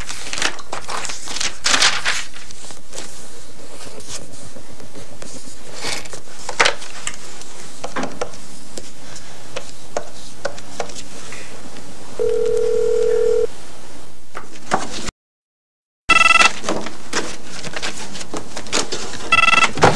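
Clicks and rustling handling noise, with a short steady telephone tone about twelve seconds in. After a second of silence comes an electronic desk telephone ringing, two bursts about three seconds apart near the end.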